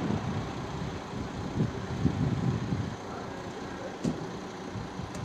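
Steady outdoor background noise: a low rumble with hiss, with a few faint, brief sounds in the middle.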